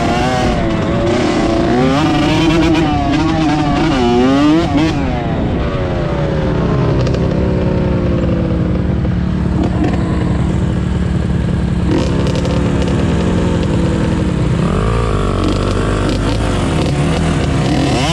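Dirt bike engines revving hard, their pitch rising and falling over and over as the bikes accelerate and back off, with two engine notes crossing each other at times.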